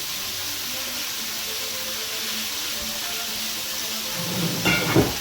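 Chicken fillets sizzling steadily in a frying pan, with a brief louder bump near the end.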